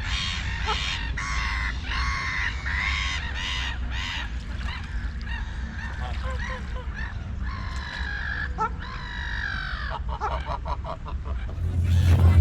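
A bird calling over and over, a long series of calls each about half a second long with several overtones. Near the end the calls give way to a quick run of clicks, and a loud low hum comes in just before the end.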